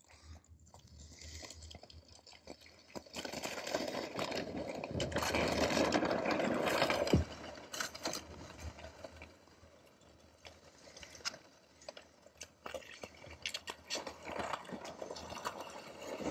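Ice skate blades scraping and crunching over rough lake ice, with many small clicks. The sound builds to its loudest about five to seven seconds in, ends that stretch with one sharp click, and then goes on more quietly.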